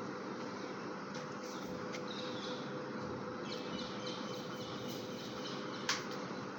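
Birds chirping over a steady background noise with a faint hum, and one sharp click near the end.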